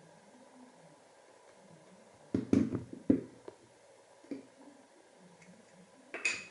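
Handling noise from hands working a metal Voigtländer M-mount lens: a cluster of knocks and rubbing about two to three seconds in, a softer knock a little later, and a sharper click near the end.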